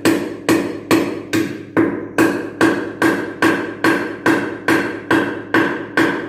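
A hammer driving nails overhead into the wooden ceiling framing, in steady, even blows about two and a half a second, each ringing briefly.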